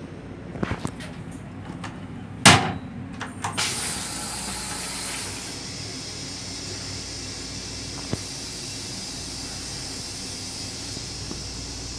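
M7 commuter railcar toilet flushing: a few clicks, a sudden loud burst about two and a half seconds in, then a couple of seconds of hissing spray that fades off. Under it runs the steady rumble and hiss of the railcar.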